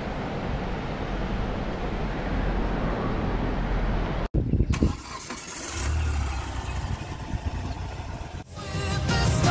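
Steady rushing of a snowmelt mountain river. It cuts off abruptly about four seconds in, giving way to a car engine running close by. Music starts near the end.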